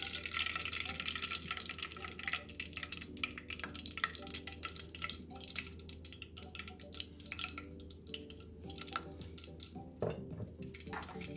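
Melted ghee poured from a glass bowl into a stainless-steel saucepan: a steady pour at first, then dripping, with fine crackling clicks throughout. A single knock about ten seconds in.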